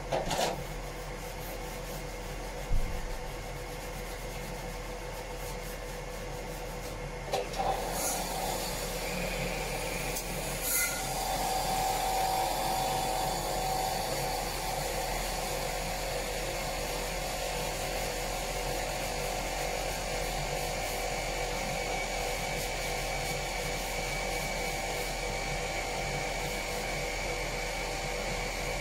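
Power sander running steadily on the bilge surface, with a few knocks in the first ten seconds.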